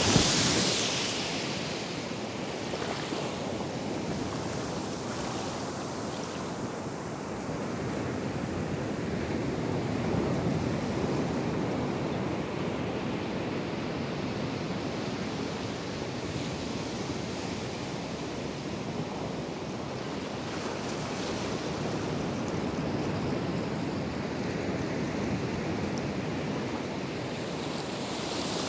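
Atlantic surf washing up the sand at the water's edge: a steady rush of breaking waves, with a louder, hissing wash from a small wave breaking close by at the start and another at the end.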